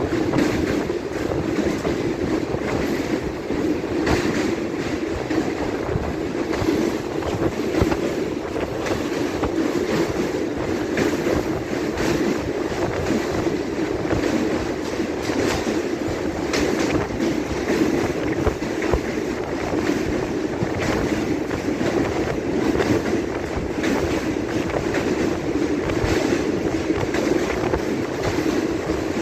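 Passenger train of ICF coaches running along the track: a steady rumble of wheels on rail, with repeated clicks as the wheels cross rail joints.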